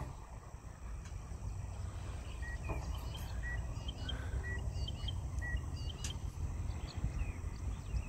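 Small birds chirping short, repeated high notes over a low, steady rumble.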